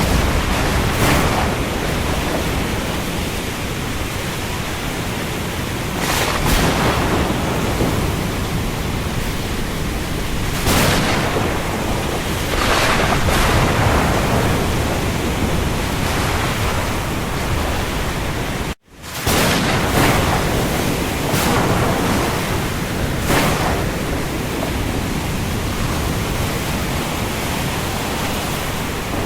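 Steady rain over the sea, with waves swelling and washing in every few seconds. The sound cuts out for an instant about two-thirds of the way through, then comes back.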